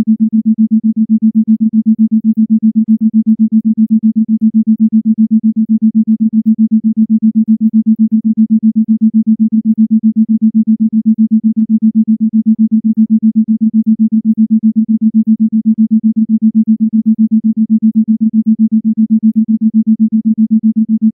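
Isochronic tone: a single low, steady-pitched tone switched on and off in rapid, even pulses, several a second.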